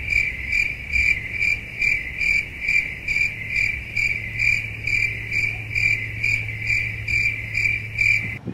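Cricket chirping steadily, a high pulsing call about twice a second, over a low steady hum; both start and stop abruptly.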